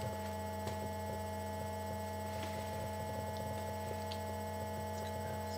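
Steady electrical mains hum with a few faint ticks.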